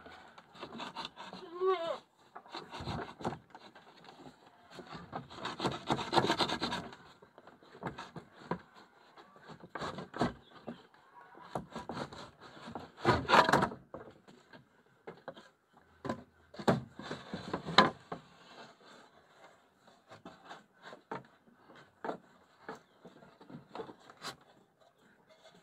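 Goats browsing and moving about: irregular rustling, crunching and scraping of dry leaves, with scattered sharp knocks. A short falling call sounds about two seconds in.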